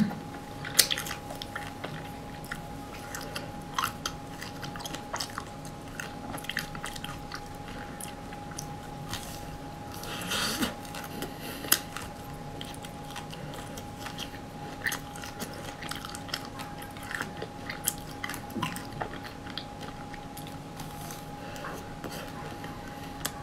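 Close-up sounds of biting and chewing a chocolate-coated ice cream bar: scattered small crunches and clicks from the hard coating and wet mouth sounds, with a denser stretch of crunching about ten seconds in.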